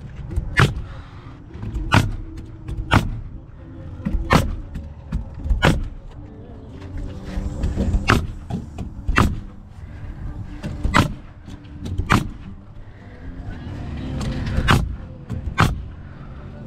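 Hammer blows: about a dozen sharp, separate strikes, roughly one a second at an uneven pace, typical of nails being driven by hand during vinyl siding installation, over a steady low rumble.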